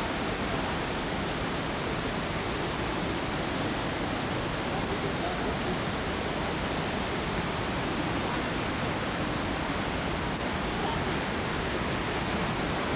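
Steady, even rush of a waterfall in flood, a heavy volume of water pouring over the falls.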